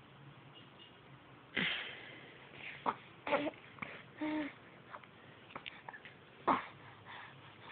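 A baby making short breathy sounds and a couple of brief coos, each a separate burst, the loudest about a second and a half in and again near the end, with light clicks between them.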